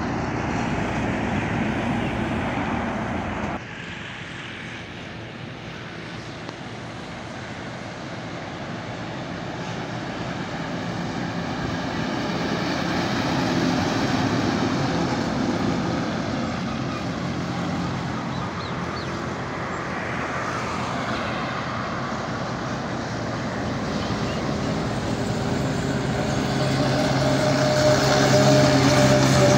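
Trucks driving past on a highway, engine and tyre noise swelling as each one nears, with a sudden change a few seconds in. It is loudest near the end as a truck passes close, its engine humming steadily.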